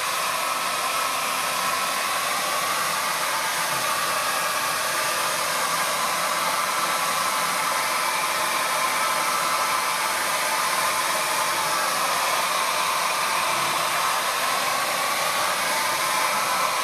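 Handheld wet angle grinder running at medium speed with a coarse 30-grit diamond pad grinding agate: a steady, loud motor whine and grinding noise, its pitch wavering slightly as the pad is pressed and moved over the stone.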